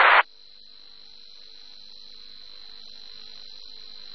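Air traffic control radio channel between transmissions: a loud burst of static that cuts off a quarter-second in, then faint hiss with a thin steady high-pitched whine.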